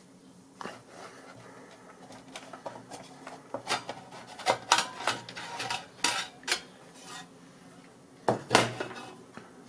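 Screws being taken out of a PC power supply's sheet-metal casing and the cover handled off: irregular metallic clicks, clinks and clatters, busiest through the middle, with another loud clank near the end.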